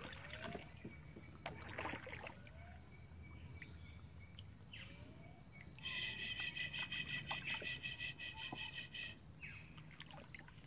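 Quiet river ambience at a kayak: water trickling and dripping faintly, with small chirps. About six seconds in, a rapid pulsing trilling call starts and runs for about three seconds, the loudest sound here.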